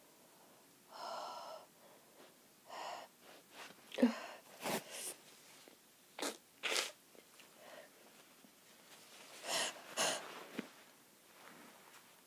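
A person with a cold sneezing: wheezy, catching in-breaths in the first few seconds, then several short, sharp sneezes in pairs, about four seconds in, near seven and near ten, the first the loudest.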